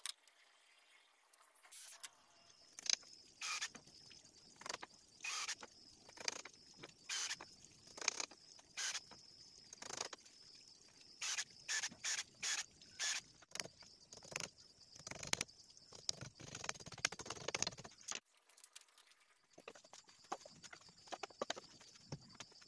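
Cordless drill run in many short, irregular bursts as it drills into bamboo. After a break near the end, softer footsteps and shuffling on a dirt floor.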